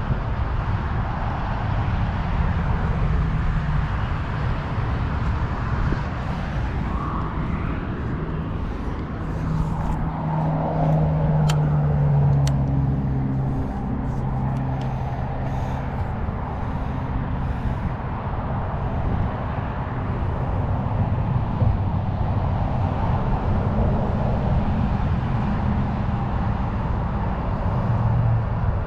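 Steady low rumble of passing road traffic. A heavier vehicle's engine hum swells about ten seconds in and fades away over several seconds.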